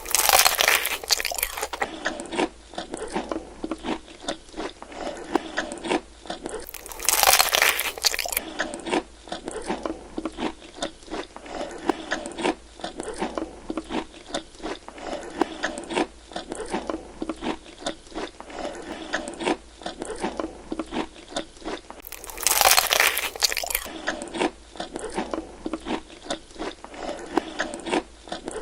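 Someone biting into and chewing crispy broasted fried chicken: a steady run of crackly crunches, with three louder crunching bites near the start, about seven seconds in and about twenty-two seconds in.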